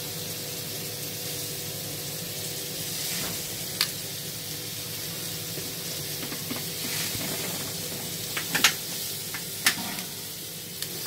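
Food sizzling steadily on a gas grill: chicken and pepper skewers and portobello mushroom caps with butter melting in them. A few sharp metallic clicks cut through, most of them between about eight and ten seconds in, as metal tongs touch the grill.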